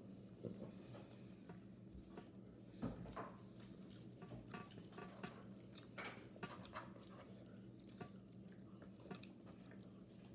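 A person quietly chewing and biting food, soft irregular mouth clicks and squelches over a low steady background hum.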